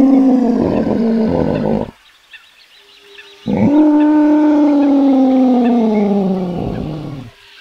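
Recorded dinosaur roar sounding for an Allosaurus model: a roar that ends about two seconds in, then after a short pause a second long roar that slowly falls in pitch and dies away near the end.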